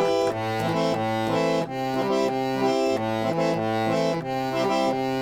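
Electric chord organ playing held reedy chords over a bass line that steps to a new note about every half second.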